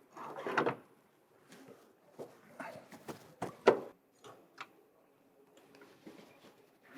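Scattered knocks and clunks of tools and parts being handled during outer CV joint work on the front hub, the loudest about three and a half seconds in. A faint steady hum sits under it from about four seconds in.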